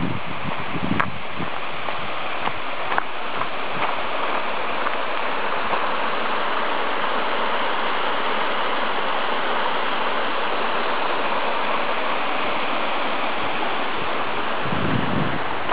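Small stream cascading over rocks, a steady rush of water. Footsteps on gravel come at the start and again near the end.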